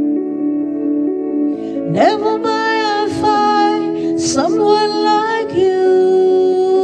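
Slow ballad: a solo voice singing over soft sustained chords, its phrases swooping up into each note, with vibrato, and one long held note near the end.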